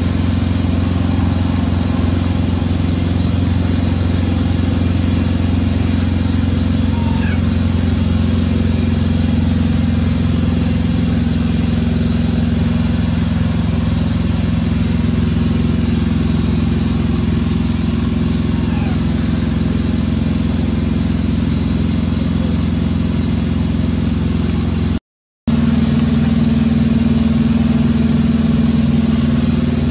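A motor running steadily, a loud low hum that never changes in pitch, cut off for a moment about 25 seconds in.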